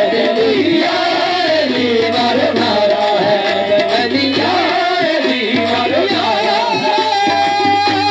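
Qawwali music: an ornamented sung line over tabla drumming, with a long held note about seven seconds in.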